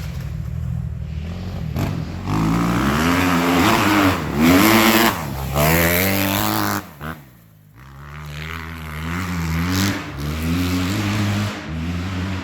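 Kawasaki 250cc motocross bike engine revving hard, its pitch climbing and falling with the throttle. The engine note drops away suddenly about seven seconds in, then builds again.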